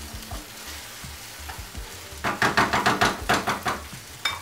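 Spatula stirring chicken, onions and soaked rice frying in a nonstick frying pan, with the rice being tossed through the chicken before the water goes in. A low sizzle with light scrapes, then about two seconds in a quick run of rapid scraping strokes, about six a second, ending in a single click.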